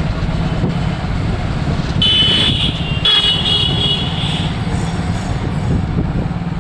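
Street traffic with a steady low rumble. A high-pitched vehicle horn sounds twice, about two seconds in and again just after three seconds, the second blast longer.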